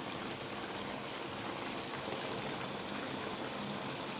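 Food sizzling steadily in hot oil in a frying pan, an even crackling hiss.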